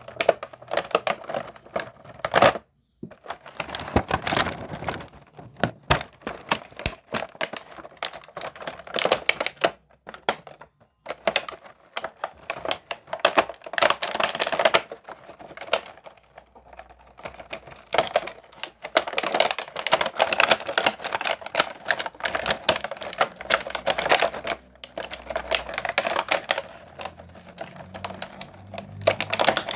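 Packaging being handled and opened: dense, rapid crackling and clicking in stretches of several seconds, with a few short pauses.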